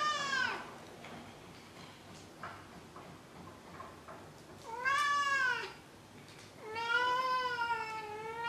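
Domestic cat meowing three times: a short meow right at the start, another about five seconds in that rises and falls in pitch, and a long, wavering meow near the end.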